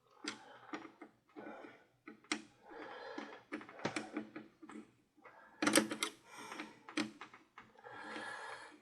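Screwdriver working loose a screw holding the radio chassis in its cabinet: irregular clicks, taps and short scrapes of metal.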